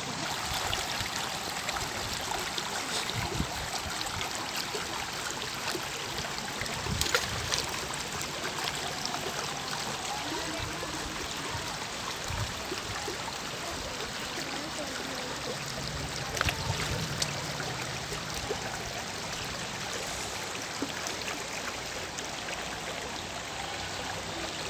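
Running water flowing steadily, an even rushing with small splashes here and there.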